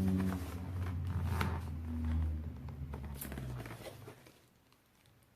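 Cardboard camera box being handled and opened: a few light taps and clicks with soft rustling, over a low steady hum that fades out about four seconds in.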